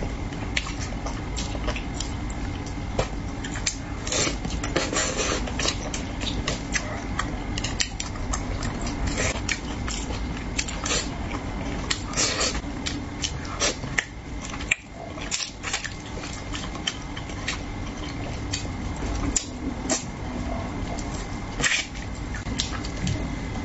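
Close-up eating sounds of spicy braised carp: chewing with many short, wet mouth clicks, and now and then chopsticks tapping on a bowl or plate.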